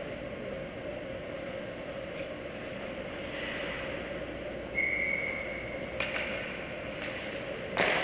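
Indoor ice hockey rink sounds: a steady hum with the scrape of skates on ice. About five seconds in there is a brief high-pitched tone, a sharp click follows a second later, and near the end comes a loud, sharp knock of stick or puck on the ice or boards.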